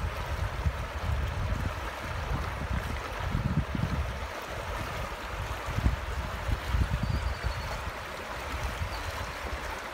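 Shallow river water running steadily over a rocky bed, with irregular low buffeting from wind on the microphone.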